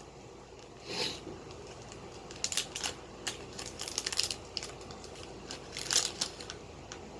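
A Buddyfight trading-card booster pack's wrapper crinkling and tearing as it is opened, in a string of short crackly bursts.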